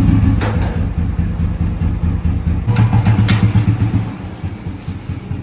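1962 Royal Enfield Bullet G2's single-cylinder four-stroke engine running, briefly revved about three seconds in, then easing back toward idle.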